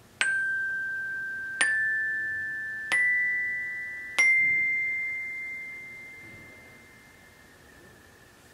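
Bell kit (glockenspiel) bars struck four times with hard rubber mallets, each note a step higher than the last, about one strike every 1.3 seconds. The notes ring on, overlap and fade away over a few seconds.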